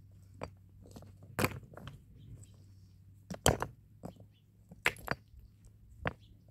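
A series of about eight sharp, irregularly spaced knocks and crunches, the loudest about halfway through.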